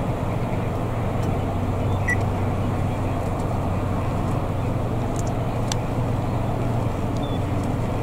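Steady low outdoor rumble with a low hum under it, and a few faint, very short high chirps, one about two seconds in.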